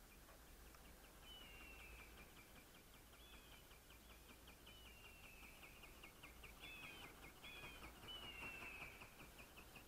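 Faint bird-like chirping: a steady run of short, high chirps, several a second, with a few longer whistled notes that slide down in pitch.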